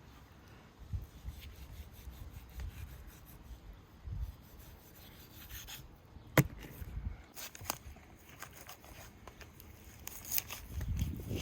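Knife trimming sinew from raw beef ribs on a wooden cutting board: irregular rubbing and scraping with scattered knocks, the sharpest one about six seconds in.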